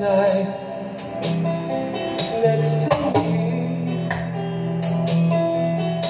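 Recorded music played loud through a mobile PA sound system with Geostorm 15-inch speakers during a sound check: sustained low bass notes with sharp hits about once a second.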